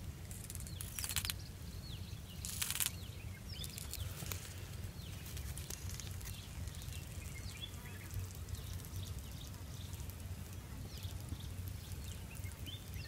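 A colony of large termites making their alarm rattle, soldiers drumming on the ground in short hissing rattles, the two loudest about one and two and a half seconds in, with fainter ones after. Faint bird chirps throughout.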